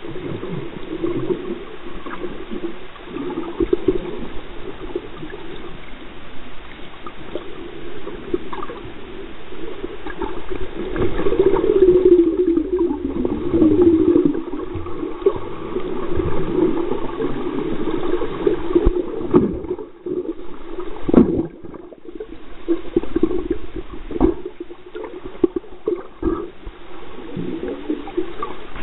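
Muffled underwater water noise heard through a submerged camera: churning, gurgling surge that swells and fades, with a few sharp knocks in the second half.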